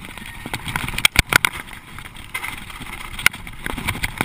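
Mountain bike rattling over a loose rocky trail on a descent: irregular sharp knocks and clicks from the bike jolting on the stones, the loudest about a second in, over a steady rush of air noise.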